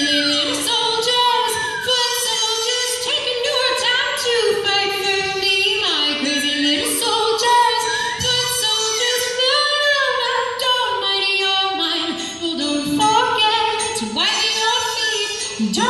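A buzzy, wordless melody played live by several performers on small hand-held mouth instruments, with notes that slide up and down between steady held pitches.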